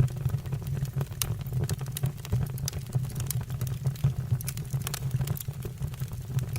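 Firewood burning in a fireplace, crackling with many sharp irregular pops over a low steady rumble of the flames.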